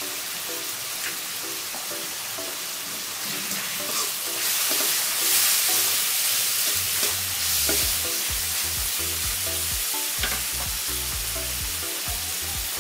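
Chopped spinach, tomato and onion sizzling in hot oil in a wok-style pan while being stirred with a spatula, which knocks and scrapes against the pan a few times. The sizzle grows louder around the middle.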